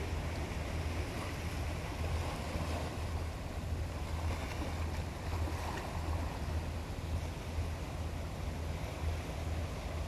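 Small sea waves washing and lapping among shoreline rocks, a steady watery hiss, with a low hum underneath.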